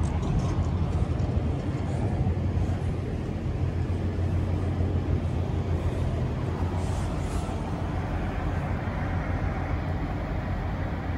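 Steady low rumble of an idling diesel truck engine.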